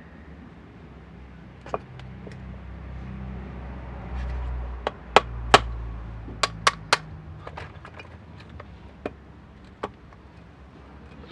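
Hammer tapping on a Mercedes-Benz blower motor to seat a part during reassembly: about five sharp taps in the middle, with a few lighter knocks before and after.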